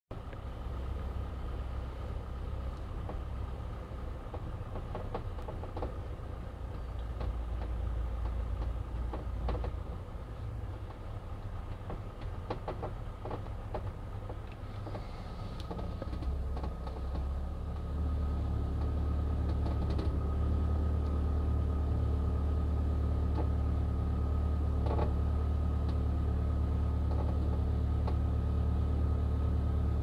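Car engine running with a low rumble and a few faint clicks, settling into a steadier, louder idle hum a little past halfway.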